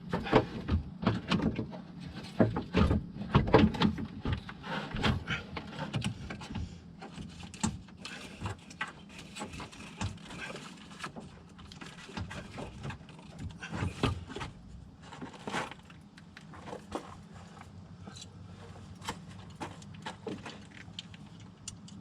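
Irregular clicks, knocks and scrapes of a car radiator and A/C condenser being handled and fitted into place, busiest in the first half. A steady low hum runs underneath.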